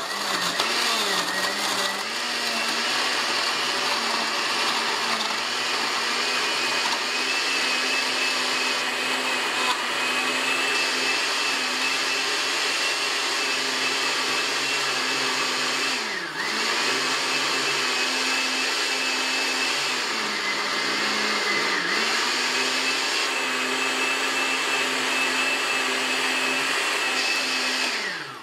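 Countertop blender running on setting 3, crushing ice with milk, coffee and sugar into a frappuccino: a loud, steady motor whine whose pitch dips briefly a few times, then cuts off.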